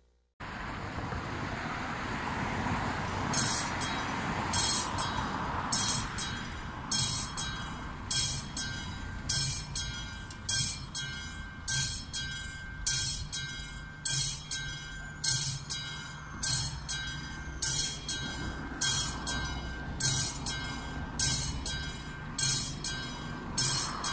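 Railway level-crossing warning bell ringing in even strokes about once a second, with the barriers down and the crossing closed for an approaching train. A low rumble runs underneath.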